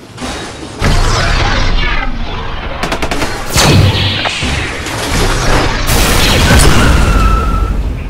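Loud dubbed action-film sound effects for a fighting robot: rapid gunfire-like blasts and heavy booms over music. A big hit comes a few seconds in, and another surge comes near the end.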